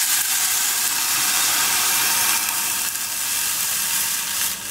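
Water poured into a hot saucepan of frying onion, capsicum and red curry paste, hissing and sizzling steadily as it hits the hot oil.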